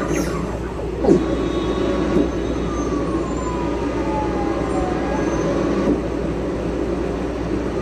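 City traffic sound effects from a TV documentary, played through a TV soundbar: a steady rumble of street noise, with one tone sliding slowly down in pitch around the middle.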